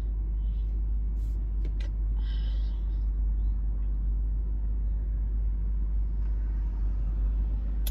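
Steady low rumble of a car idling, heard from inside the cabin, with a few faint clicks about a second or two in.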